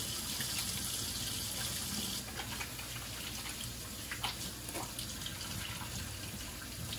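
Kitchen faucet running into a sink as hands are washed. The flow stops about two seconds in, leaving a few faint clinks and splashes.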